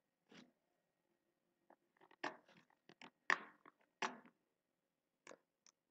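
About ten faint, short clicks scattered over a few seconds, the loudest a little past three and four seconds in.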